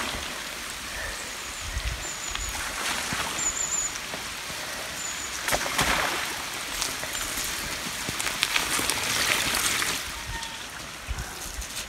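Mountain bike tyres rolling over a wet, muddy lane and splashing through puddles, with a few louder swishes. Short high bird chirps come several times in the first half.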